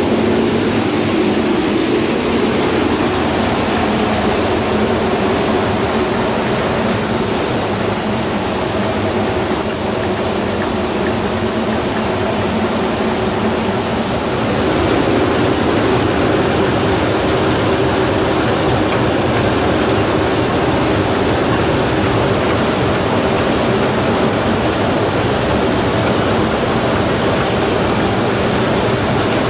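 Satake rice huller running steadily, with the clunking ("gatan-gatan") abnormal noise that the owner traces to an old, worn pulley. It gets slightly louder about halfway through.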